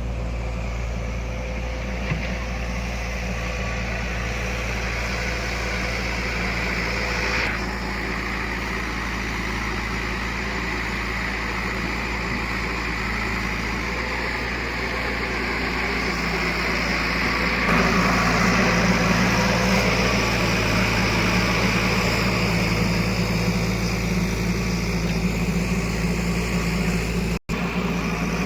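Diesel engines of a backhoe loader and tractors running steadily, growing louder about two-thirds of the way through. The sound cuts out for an instant near the end.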